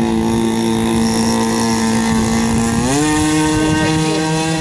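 Vintage radio-controlled model airboat's nitro engine and air propeller running at a steady pitch, then revving up to a higher pitch about three seconds in and holding there as the throttle is opened.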